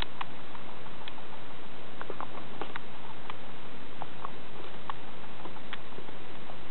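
Baby guinea pig gulping water from a bottle's metal sipper tube: irregular small clicks and taps, a few each second, as it laps and bites at the spout.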